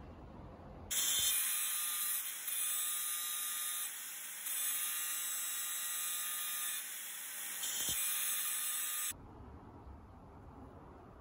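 Grinder with a spinning grinding disc grinding down a weld bead on a metal stove part: a high-pitched whine and hiss of the disc biting into the metal, starting about a second in, its level stepping up and down as the pressure changes, and cutting off sharply near the end.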